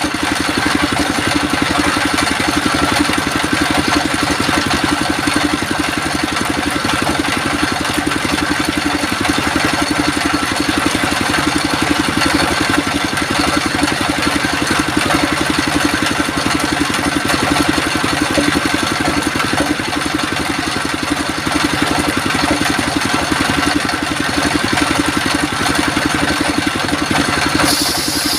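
Sawmill machinery running steadily, a loud even engine-like drone with no distinct strikes or cuts standing out.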